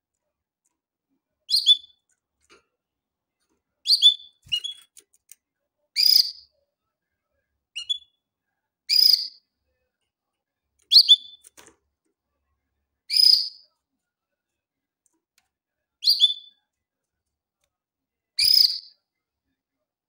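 A domestic canary giving short, high chirping calls, about ten of them, one every two seconds or so, with silence in between.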